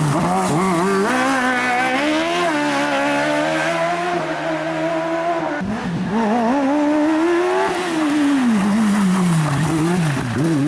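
Single-seat slalom race car engines revving hard, the pitch climbing and dropping again and again with throttle and gear changes through the tight course. The sound breaks off abruptly a little past halfway and picks up on another car.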